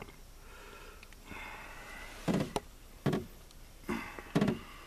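Four short, dull knocks, with faint handling noise between them, as a bullhead is held in the hand and unhooked.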